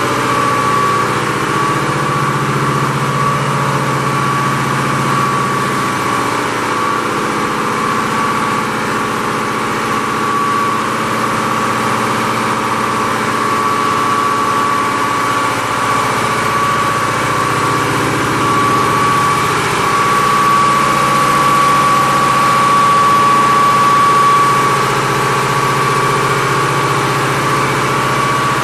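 Ship's diesel generator engines running steadily in the engine room: a loud, even machinery drone with a steady high whine over it.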